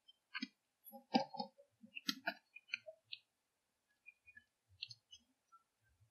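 Sparse, irregular clicks and short crunching crackles, densest and loudest in the first three seconds and thinning to a few faint ticks, with dead silence between them from heavy noise reduction. The recordist takes them for munching and crunching mixed with clicks.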